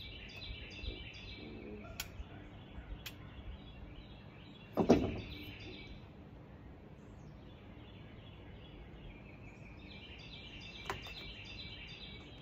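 A pellet gun (scoped air rifle) fired once about five seconds in, a short sharp pop, with birds chirping steadily in the background and a few faint clicks.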